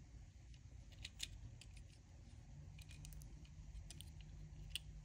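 Faint, scattered light clicks of small plastic robot-kit parts being handled and turned in the hands.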